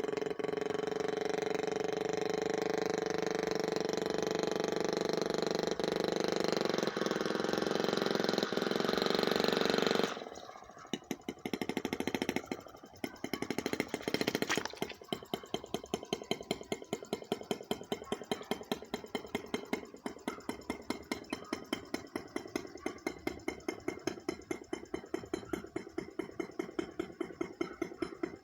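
Gas-powered RC boat's small engine running at speed, then cut back abruptly about ten seconds in; it sputters unevenly for a few seconds, then settles into a steady, evenly pulsing idle.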